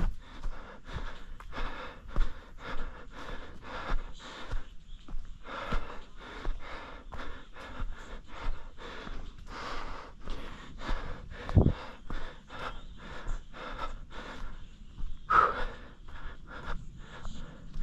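A runner's heavy, fast panting breaths, repeating in a quick steady rhythm, from exertion on the trail.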